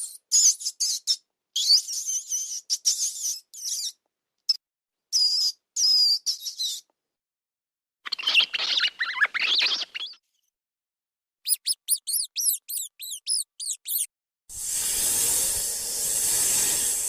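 A string of high-pitched animal calls: short chirps and squeaks for the first seven seconds, a rising call at about eight seconds, and a quick run of repeated sweeping chirps around twelve seconds. An even hiss starts near the end.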